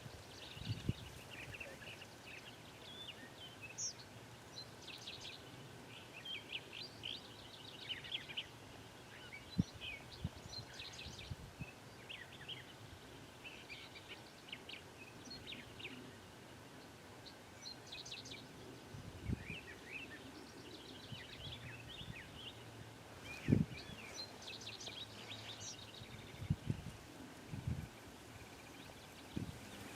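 Songbirds chirping and singing on and off, many short high calls over a quiet background. A few soft low thumps come through, one at about ten seconds, others near twenty and twenty-four seconds.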